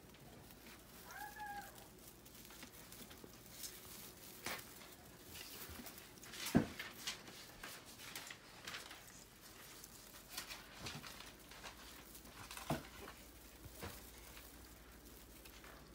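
A kitten mews once, briefly, about a second in. Then Christmas tree branches and ornaments rustle, with scattered sharp knocks; the loudest knock comes about halfway through.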